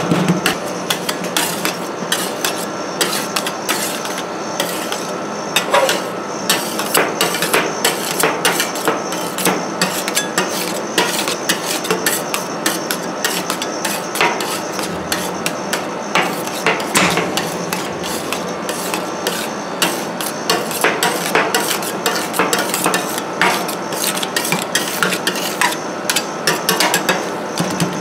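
Two metal spatulas chopping, tapping and scraping on the steel pan of a rolled-ice-cream cold plate, crushing M&M's into the half-frozen ice cream base: a fast, irregular run of clacks and scrapes.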